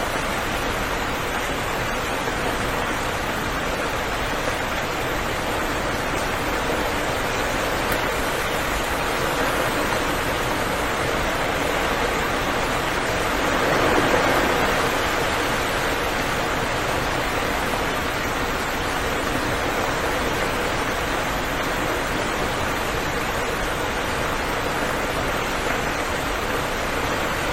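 Steady rain falling, a dense even hiss that swells briefly louder about halfway through.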